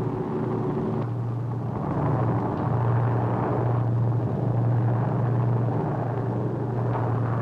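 Steady drone of a B-29 bomber's four propeller engines in flight, a low hum that swells slightly about two seconds in.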